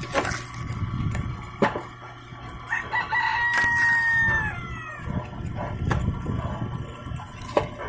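A rooster crows once, about three seconds in: one call of about two seconds, held level and dropping in pitch at its end. Under it, a homemade log splitter runs with a low steady hum, and its wedge gives several sharp knocks as it splits a log.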